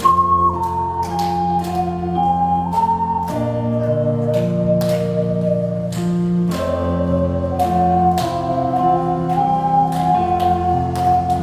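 Ocarina playing a stepwise melody in clear, pure tones over an accompaniment of held bass and chord notes with a light steady beat.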